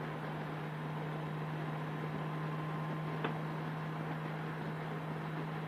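Steady wind and road noise with a constant low drone, as picked up by a helmet camera or intercom microphone while riding at an even speed; a faint click about three seconds in.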